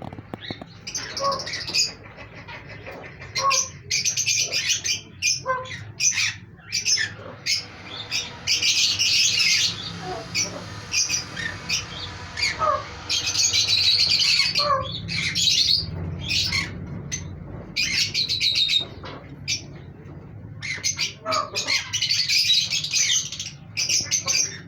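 Caged pet birds, parrots and Java sparrows, calling in many short chirps and squawks, with spells of dense, harsh squawking now and then. A steady low hum runs underneath.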